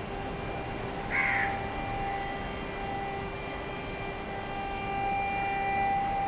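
A crow caws once, about a second in, over the steady wash of sea surf breaking on the shore, with a few faint steady tones underneath.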